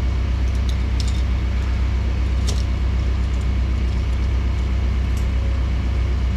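Heavy diesel engine running steadily at low revs, a constant deep drone with a few faint light ticks over it.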